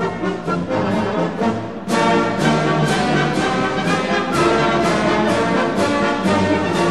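Background orchestral music led by brass, playing held notes over a steady beat of about three strokes a second.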